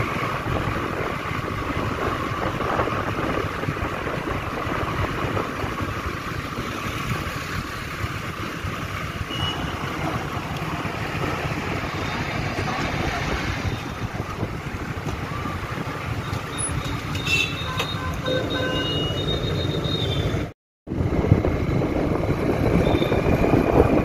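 Steady road and wind noise with engine hum from a two-wheeler riding through city traffic, with a few short beeps from traffic near the end. The sound cuts out completely for a split second shortly before the end.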